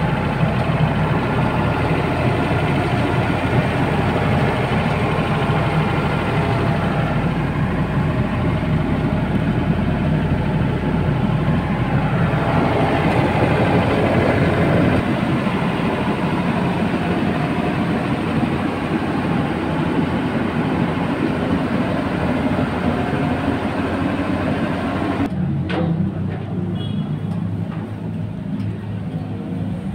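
A big PA sound system, SKM's 25,000-watt rig, plays loud with heavy bass in a steady, dense wall of sound. The treble thins out about 25 seconds in.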